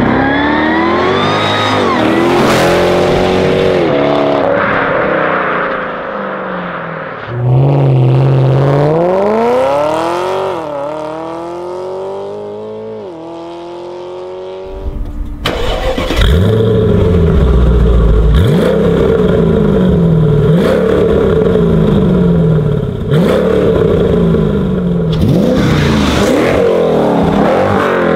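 Supercharged V8 sports cars accelerating hard at full throttle: the exhaust note climbs in pitch and drops back at each upshift. About halfway through it cuts to a deeper, louder run of acceleration with repeated rises in pitch.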